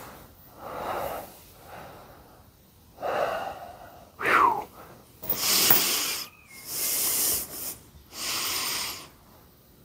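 A man breathing hard after working a bottle jack, a series of heavy, hissing exhales about every second and a half. A brief falling squeal about four seconds in.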